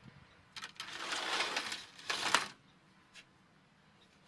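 Sliding screen door rolling along its track, its wheel just set back on the track: a rattly roll of about a second, then a shorter slide that ends in a knock, and a faint click a little later.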